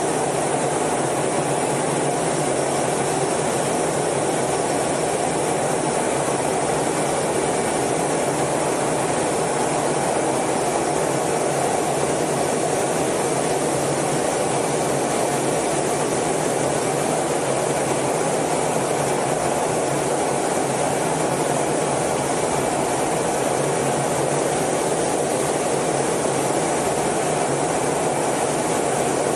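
Steady rushing roar of a Blue Angels F/A-18's jet engines and airflow heard inside the cockpit in flight, even and unchanging throughout.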